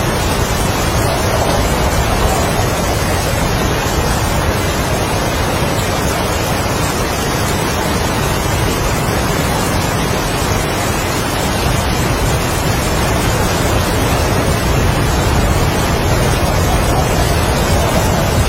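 Heavy rain and strong wind making a steady, dense noise with no breaks.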